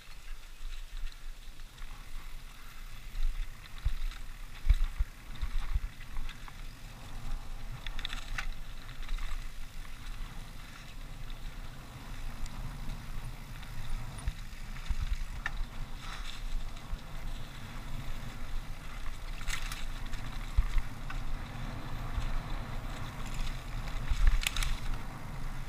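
Mountain bike riding fast down a dirt forest trail: tyres rolling over packed dirt and dry leaves and the bike rattling over bumps, with a few sharp clacks as it hits roots and ruts. Wind rumbles on the bike-mounted camera's microphone.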